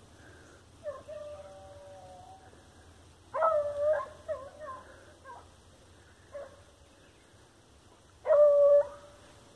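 Hunting dog baying on the trail of a paca: several drawn-out, even-pitched bays, the two loudest about three and eight seconds in, with fainter, shorter cries between.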